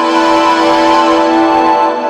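Electronic synthesizer drone from the P_4L II Eurorack-style Max for Live synth plugin: held tones with many overtones. A noisy, hissy wash sits over them and cuts off near the end.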